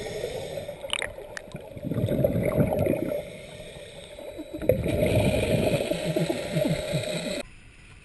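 Water gurgling and bubbling in loud spells a couple of seconds apart. It cuts off suddenly shortly before the end.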